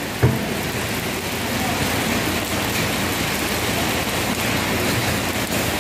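Steady rain falling on wet ground, an even hiss, with a brief knock about a quarter of a second in.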